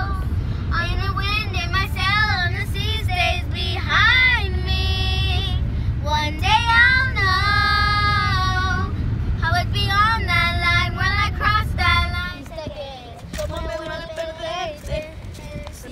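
Young girls singing together inside a moving car's cabin, with long held notes over a steady low road rumble. About twelve seconds in, the rumble stops and quieter voices continue outdoors.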